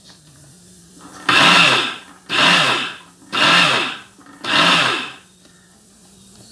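Electric mixer grinder powdering roasted sesame seeds in its steel jar, run in four short pulses: each time the motor whirs up in pitch and winds down again. The grinding is done in pulses so the sesame turns to powder without starting to release its oil.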